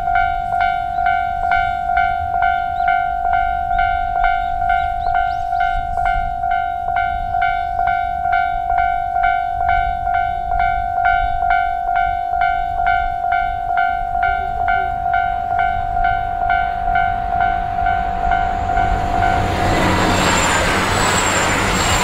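Level crossing warning bell ringing steadily, about two and a half strokes a second. Near the end a JR Hokkaido KiHa 261 series diesel limited express rushes through the crossing, and its loud running noise swamps the bell.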